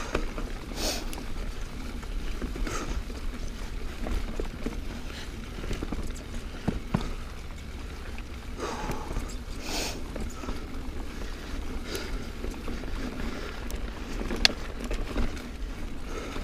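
Niner Jet 9 RDO mountain bike riding dirt singletrack: steady tyre rolling noise and a low rumble, with scattered sharp knocks and rattles from bumps, the sharpest about three quarters of the way through.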